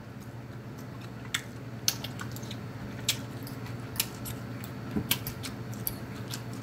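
Close-miked chewing of a mouthful of chicken lo mein, with irregular wet smacks and lip clicks over a steady low hum.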